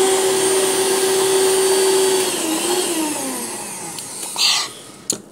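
A small electric motor runs with a steady whine, then is switched off about two seconds in, its pitch falling as it spins down. A short hiss and a sharp click follow near the end.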